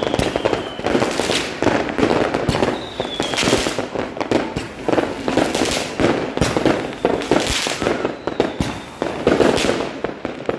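Fireworks and firecrackers going off in a dense, irregular string of bangs and crackles, with a couple of faint falling whistles.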